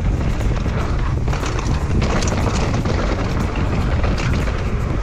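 Mountain bike riding down a rough, rocky trail: a steady low rumble of wind on the camera microphone and tyres on the ground, with quick rattles and knocks from the bike over the bumps.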